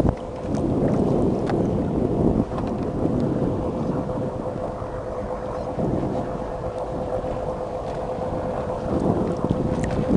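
Wind rumbling on the microphone over water lapping at a sea kayak's hull, with a steady hum underneath and a few light splashes.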